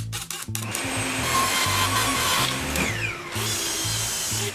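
A power tool running on clear plastic sheet, with a short falling whine about three seconds in, over background music with a bass line.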